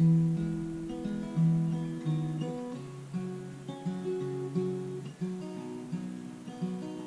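Solo acoustic guitar strumming chords in a steady rhythm, the instrumental introduction of a folk song.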